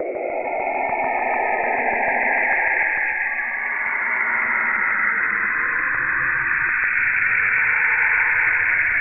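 Saturn's radio emissions, recorded in space and shifted into the range of hearing: a dense, eerie hiss with a high whistling band and a lower tone that glides upward in the first couple of seconds.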